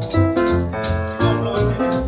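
Background music: a piano-led tune with a moving bass line and a steady beat.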